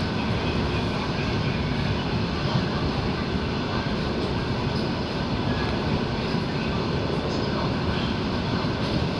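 A moving train running steadily on its rails, with a continuous rumble and the faint knocks of wheels over rail joints.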